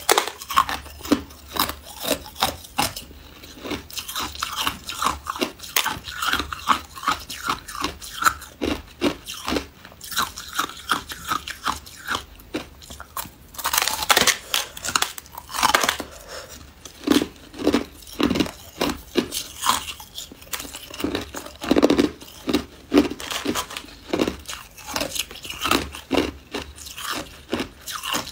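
Hard ice being bitten and chewed close to the microphone: a continuous run of crisp crunches, several a second, with the loudest bites around the middle.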